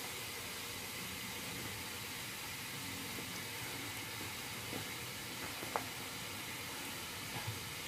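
Steady hiss of adobo sauce simmering in a wok over an open wood fire, with a few sharp clicks and knocks from the firewood, the loudest about six seconds in as a log is pushed into the fire.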